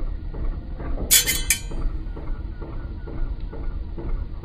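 A brief metallic jingle of two or three quick strokes about a second in, over a steady low rumble.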